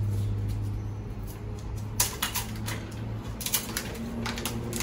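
White curtain rods clacking and rattling as they are handled and worked apart: a couple of sharp clicks about two seconds in and a cluster more past three seconds. A steady low hum runs underneath.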